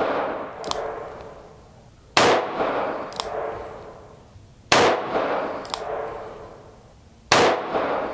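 Taurus 942M .22 Magnum revolver with a 3-inch barrel firing CCI Maxi-Mag rounds: three sharp shots about two and a half seconds apart. Each shot trails off in a long echo, with a fainter sharp crack about two-thirds of a second after it.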